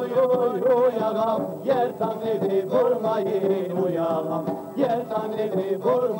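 A man singing a slow melody into a microphone, with long held notes that waver and slide between pitches.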